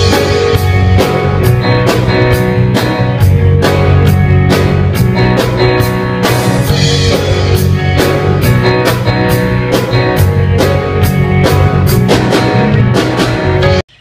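Intro music with a steady drum beat, cutting off abruptly near the end.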